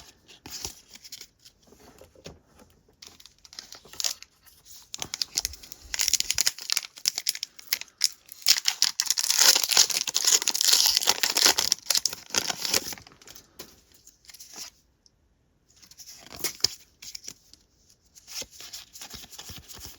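Pokémon booster pack wrapper being torn open and crinkled, with scattered rustles and clicks of cards being handled. The tearing and crinkling is densest for several seconds in the middle, then stops briefly before the card handling resumes.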